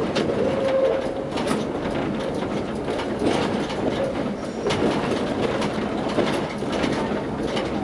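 Tatra T6A5 tram running along its track, heard from the driver's cab: a steady rumble of wheels on rails with a few sharp clicks and clacks.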